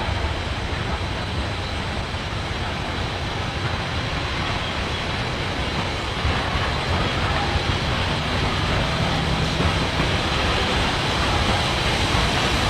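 Steam locomotive No. 4501's train running: a steady rolling noise with no whistle, getting slightly louder about six seconds in.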